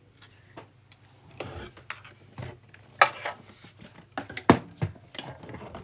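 Hard parts being handled and set down during assembly: an irregular run of clicks and clattering knocks, the loudest two about three and four and a half seconds in.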